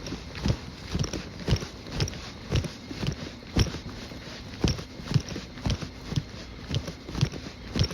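A person's footsteps walking at an even pace, about two steps a second.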